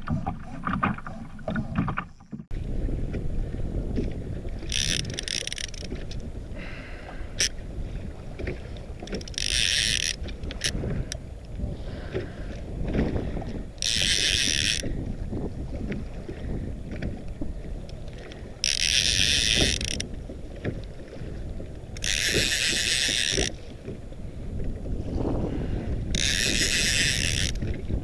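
Wind and choppy sea water against a kayak, heard through a GoPro as a steady low rumble. About every four seconds a short hissing splash of water rises over it, six times in all.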